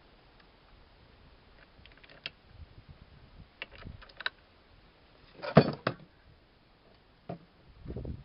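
Metal parts of a bench vise clicking and knocking as they are handled during reassembly: a few light clicks, then a louder clunk about five and a half seconds in and a couple more knocks near the end.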